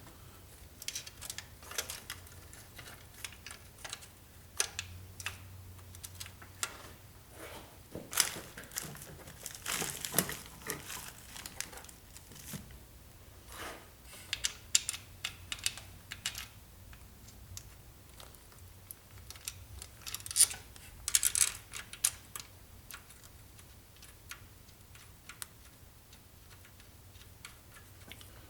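Irregular light metallic clicks, taps and rustling of parts and tools being handled while fitting the timing chain and cam gears, busier about eight to eleven seconds in and again around twenty seconds in.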